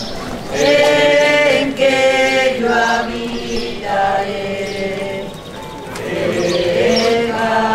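A group of voices singing a slow hymn in long held notes that move from one pitch to the next about every second.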